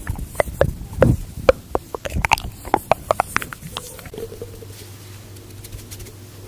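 A man's stomach gurgling: a quick run of sharp popping gurgles for the first few seconds, then a faint steady low tone from about four seconds in.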